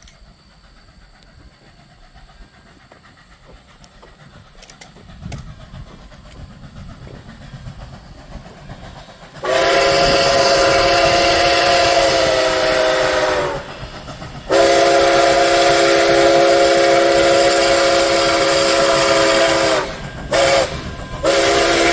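Nickel Plate Road 765, a 2-8-4 Berkshire steam locomotive, approaches with a low rumble that grows. Its chime whistle then sounds a chord in the grade-crossing pattern: two long blasts, a short toot, and a long blast that begins near the end.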